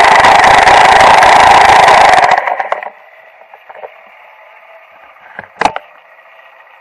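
Dirt bike engine idling loud and close, then switched off about two seconds in, dying away within half a second. After that only a faint hiss remains, with a few small clicks and one sharp click near the end.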